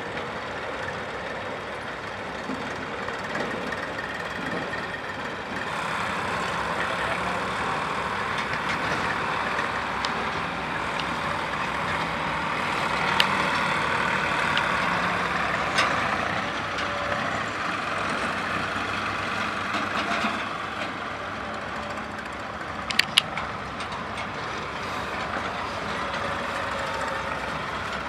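Sonalika diesel tractor engines running at low speed, a steady drone that grows a little louder in the middle. A few sharp knocks cut through it, two of them in quick succession late on.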